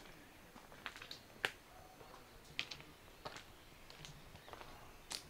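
A series of sharp clicks or taps at irregular intervals, about ten in five seconds, the loudest about one and a half seconds in, over faint background hiss.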